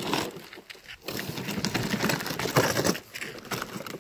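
Loose gravel crunching and scraping in quick, irregular bursts, with a short lull about a second in.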